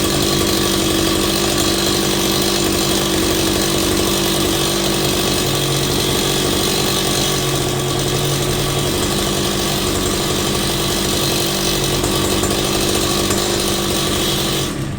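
Husqvarna 143R-II brushcutter's two-stroke engine running steadily, then cutting out just before the end as the engine dies.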